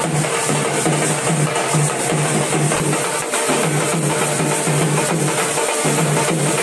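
Barrel drums (dhol) beaten in a steady, fast folk rhythm, with a low beat repeating a few times a second.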